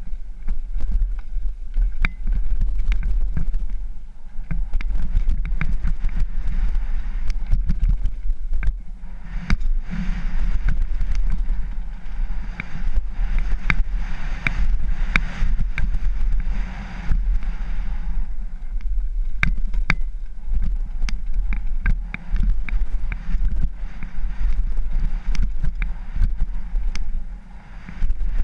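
Wind buffeting a helmet-mounted camera's microphone as a bike runs fast down a rocky dirt trail, with constant clattering and knocking from the ride over stones and ruts. The hiss grows louder for several seconds in the middle.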